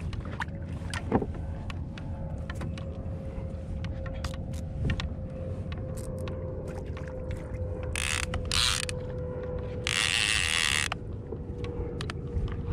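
Gear on a fishing kayak clicking and creaking, over a faint steady whine, with two short loud hissing bursts about eight and ten seconds in.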